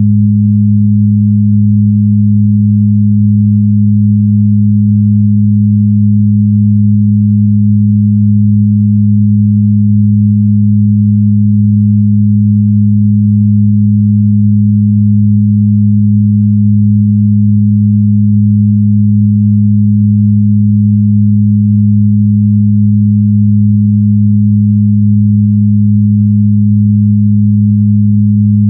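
Synthesized sound-therapy frequency tones: a loud, steady low hum of two pure tones, the upper one about an octave above the lower.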